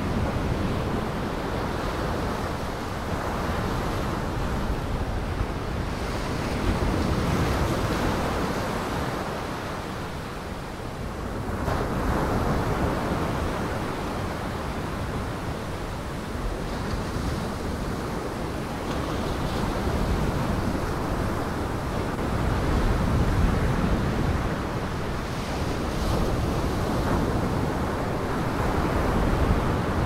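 Heavy storm surf breaking and washing ashore, with wind; the rush swells and eases every few seconds as the waves come in.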